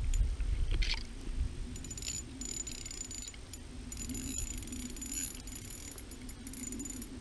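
Spinning reel on a light ice-fishing rod clicking and whirring in short spells as a big lake trout is played at the ice hole, over low wind rumble on the microphone.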